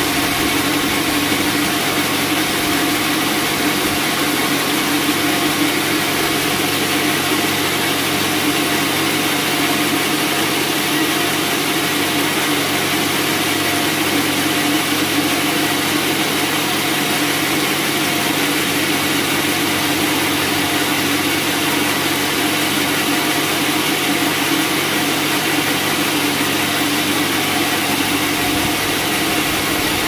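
Vertical bandsaw mill running without cutting: a loud, steady mechanical drone with a strong low hum.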